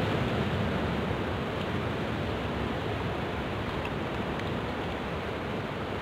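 Steady rush of ocean surf breaking on rocks, mixed with wind on the microphone.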